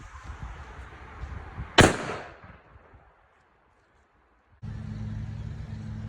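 A single firecracker goes off with one sharp, loud bang, and its echo fades over about a second. Later a steady low hum starts abruptly.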